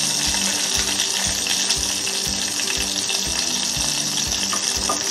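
Steady sizzling hiss from orange sauce simmering in a stainless pot on a portable butane burner, under background music with a steady beat of about three low thumps a second.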